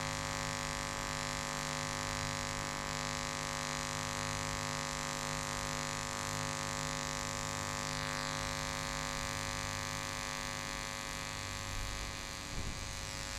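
Pulsed TIG arc on 1-inch stainless steel pipe, buzzing steadily: the buzz comes from the pulse frequency on a 200-amp EWM welding plant, set at 70. The buzz cuts off near the end as the weld finishes.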